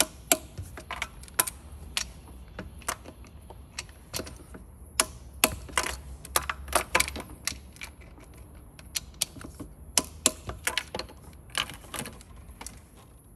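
Ratchet and click-type torque wrench clicking as intake manifold bolts are tightened to 20 newton metres: a string of sharp, irregular metallic clicks, some in quick pairs.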